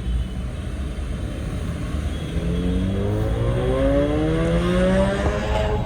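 Car fitted with an aftermarket performance exhaust accelerating: a low exhaust rumble, then from about two seconds in the engine note rises steadily in pitch as it revs up, easing off near the end.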